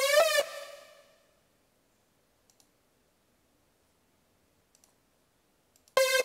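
Sylenth1 synth lead ending a note with a portamento glide, its pitch sliding up and back down, then fading out within about a second; this is the slide that mono legato mode gives. A few faint mouse clicks follow. About six seconds in, the lead starts again with a run of short repeated notes, about three a second.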